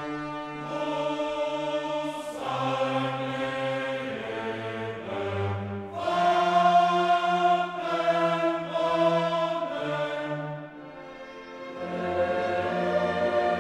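Slow choral and orchestral background music, held chords changing every second or two; it drops away briefly about eleven seconds in, then swells again.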